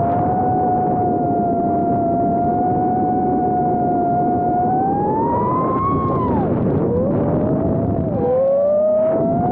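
A 4-inch freestyle FPV quadcopter's motors and propellers whining in flight, over a rush of wind and prop wash. The pitch holds steady, rises past halfway through, drops sharply as the throttle comes off, then climbs again near the end as the throttle is applied.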